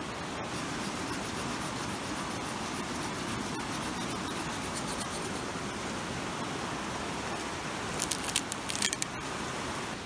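Steady rush of a fast, flooded river. Over it, a faint repeated scraping of a Swiss Army knife cutting into a sapling's trunk in the first half, and a short cluster of sharp crackles about eight seconds in.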